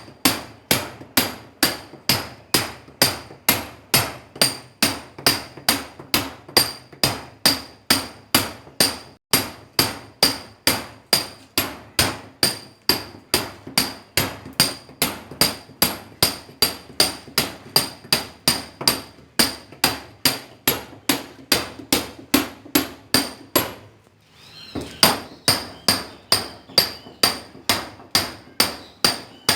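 Hammer striking a steel chisel in a steady rhythm, about two blows a second, each with a short metallic ring. The blows stop for about a second near the end, then resume.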